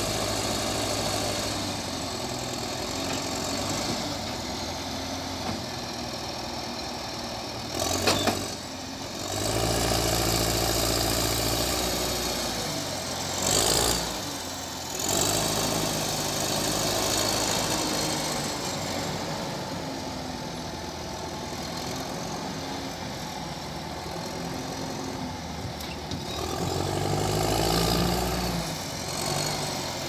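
Heavy diesel engine of a wheeled log loader with a grapple fork, running steadily and revving up under load twice, about nine seconds in and again near the end. Two sharp knocks come about eight and thirteen seconds in.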